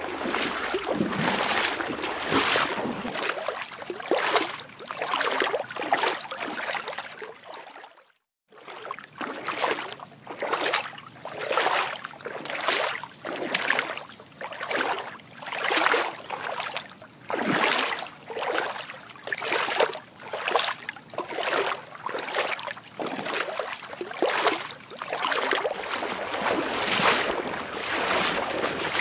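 Water sloshing in rhythmic swishes about once a second, cutting out briefly about eight seconds in.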